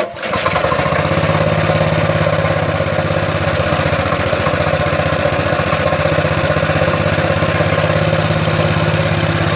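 Mini bike's Baja 196 cc single-cylinder four-stroke engine, freshly fitted with a Tillotson fuel-injection carburettor, catching on its first start and settling within about a second into a steady, smooth idle.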